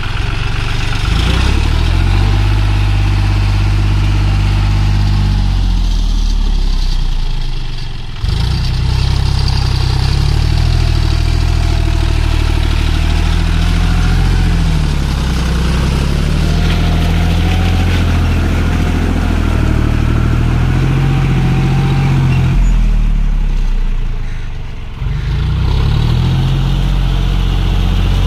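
John Deere tractor's diesel engine running under load as it drags cage wheels and a disc harrow through flooded paddy mud. The engine note rises and falls, dipping briefly twice.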